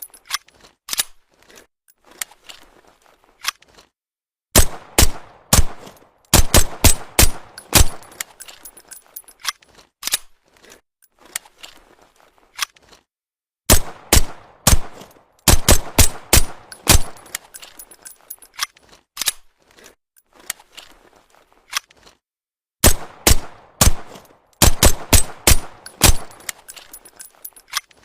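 Suppressed Walther PPK pistol shots: sharp, quick shots fired in rapid strings, with pauses of a few seconds between strings.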